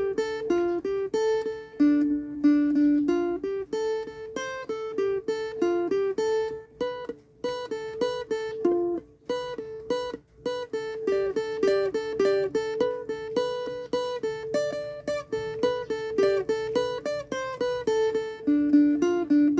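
A plucked string instrument, guitar-like, picking a quick melody of single notes, with a few short pauses.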